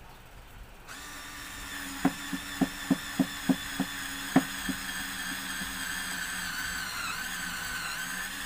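Greenfield cordless handheld screwdriver driving a black screw through plywood into steel tubing. The motor starts whirring about a second in, and a run of sharp clicks, about three a second, comes over the next few seconds. The motor then whirs steadily under load.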